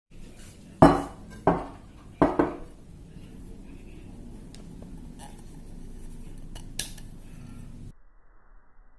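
Kitchenware clattering: three sharp, ringing knocks of utensils or dishes in the first couple of seconds, then a few lighter clinks over a steady low background hum that cuts off abruptly near the end.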